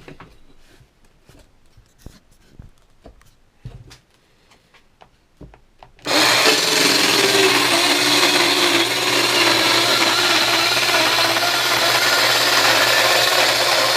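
Light clicks of handling, then about six seconds in a Parkside PHKSA 12 A1 12 V cordless mini circular saw starts up and runs steadily through a cut, its motor tone dipping slightly as it bites. It runs strongly on a freshly charged battery.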